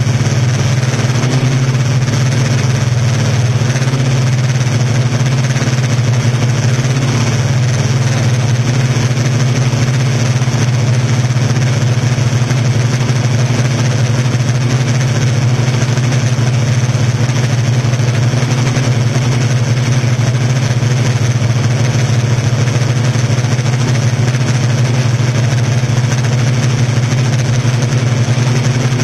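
Yuneec Typhoon Q500 4K quadcopter's electric motors and propellers humming steadily in flight: a constant low hum over an even hiss, without change.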